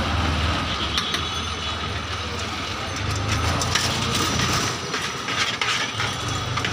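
Irregular metal clicks and scrapes from a hand clearing out a large aluminium mixing bowl at a street-food stall, over a steady low rumble of street noise.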